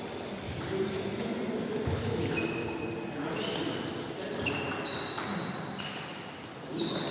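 Table tennis balls clicking sharply on tables and bats, scattered and irregular, about once a second, over a murmur of voices in the hall, with a louder ball strike at the very end.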